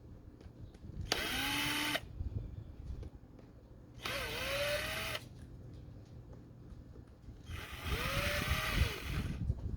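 Cordless drill-driver run in three short bursts of about a second each, its motor whine gliding up as it spins up each time, typical of backing out fasteners.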